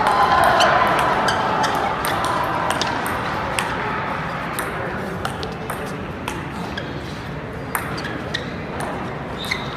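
Table tennis rally: the ball clicking sharply off the paddles and the table in a quick, irregular back-and-forth.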